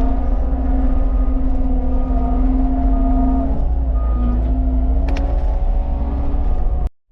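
Cat 299 compact track loader's diesel engine running steadily while rolling in gravel with its compactor attachment, with a deep rumble under a steady engine tone. The sound cuts off abruptly near the end.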